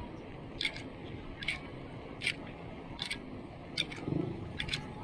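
Bicycle riding over a concrete road: a sharp click repeats a little more than once a second over the low rumble of the tyres. The rumble swells near the end.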